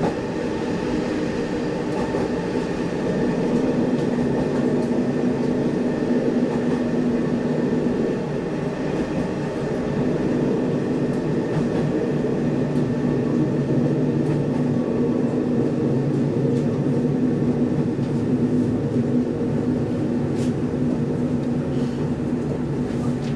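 Diesel railcar running, heard from inside the cabin: a steady engine hum with rail and wheel noise, its lower hum growing stronger about two-thirds of the way through.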